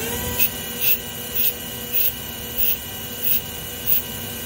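CNC slant lathe spindle running at about 2,000 rpm with a steady whine. Over it, a short high squeal repeats about every two-thirds of a second: a bearing noise that has newly appeared at this speed.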